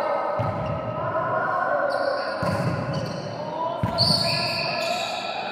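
Volleyballs being struck and bouncing on a gym floor, three thuds a second or two apart, echoing in a large hall over a constant wash of distant voices.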